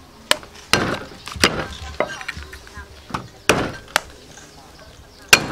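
A cleaver striking a wooden chopping board: about seven sharp, separate chops at irregular intervals, the loudest near the middle and near the end.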